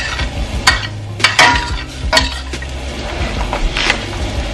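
Diced onions and peppers sizzling in butter in a stainless steel sauté pan, with a few sharp clinks and knocks against the pan.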